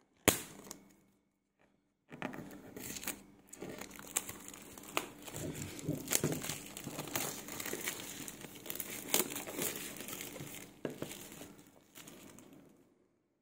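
Clear plastic shrink-wrap being torn and peeled off a smartphone box: one sharp snap just after the start, then after a short pause a long run of crinkling and crackling with frequent sharp snaps, fading out shortly before the end.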